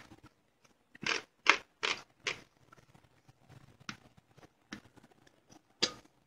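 Drained, cooked carrot slices tipped out of a plastic colander into a bowl: four short scraping knocks about half a second apart, then a few fainter ones. One more knock comes near the end as the colander is set down on a glass bowl.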